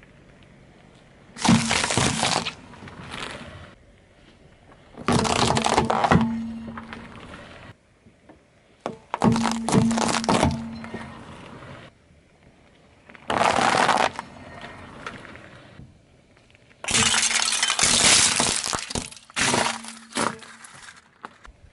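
A car tyre rolling over and crushing vegetables and brittle clear objects on asphalt. There are six separate bursts of cracking and crunching, each a second or two long, with short pauses between.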